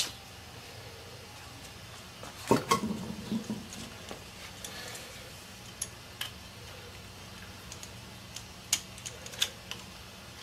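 Light metallic clicks and clinks as cam bolts are fitted into the steel cam gear and a wrench is handled, with a louder clatter about two and a half seconds in.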